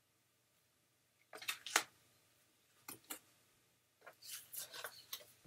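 Stiff paper flashcards being handled and swapped: a few soft taps and rustles of card, in two short groups and then a longer cluster of light rustling near the end.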